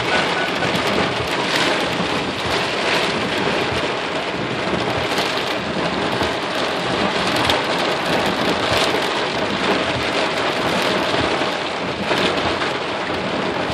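Heavy rain drumming on a vehicle's roof and windshield, heard from inside the cab: a dense, steady patter with scattered louder hits.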